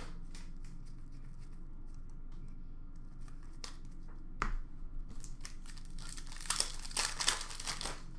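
Card pack wrappers crinkling and being torn open, the crackling thickest in the last couple of seconds, with a single sharp click about halfway through.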